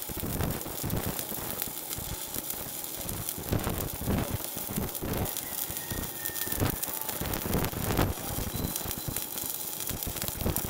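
Stick-welding arc burning a 3.2 mm electrode at about 160 A on 8 mm steel plate, fed by a Tenya Cut60c inverter in stick mode: a steady crackle and sizzle with irregular pops.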